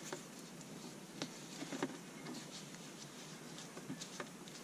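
Faint rustling and scuffing of braided Dyneema rope being handled, as a thin line is wrapped around and passed through a loop of thick rope to make a double sheet bend, with a few small ticks scattered through.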